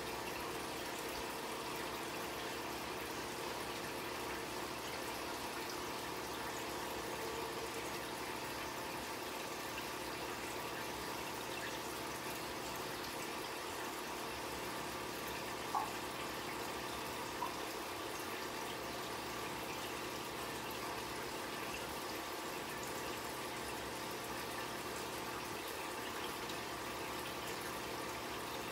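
Steady trickle of water and hum of an aquarium's filter pump running. Two short clicks about halfway through, a second and a half apart.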